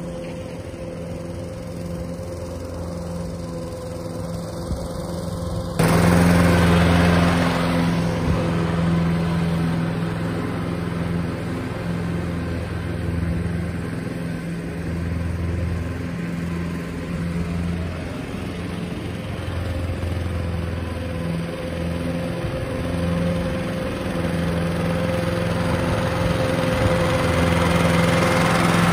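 Toro ProStripe 560 walk-behind rotary mower running steadily under load as it cuts grass short. It jumps louder about six seconds in and grows louder again near the end as it comes closer.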